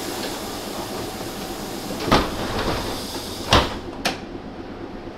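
Interior of a Breda-built Milan Metro M2 'Tradizionali' car: a steady hum with three sharp bangs about two, three and a half and four seconds in, the middle one the loudest.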